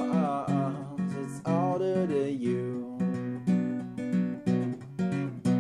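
Acoustic guitar strummed in a steady rhythm, about two strums a second. Over the first half a wordless sung line glides above the chords.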